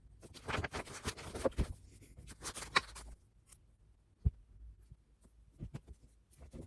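Rustling and scratching of objects being handled for about three seconds, then a few separate light taps.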